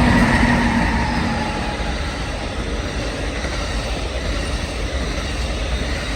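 Amtrak passenger train led by a Siemens Charger ALC-42 diesel locomotive passing at speed: the locomotive is loudest in the first second, with a few steady tones that fade, then the cars roll by in a steady rumble on the rails.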